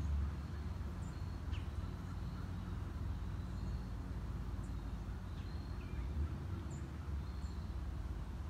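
Quiet outdoor ambience: a low steady rumble with a few faint, brief bird chirps scattered through.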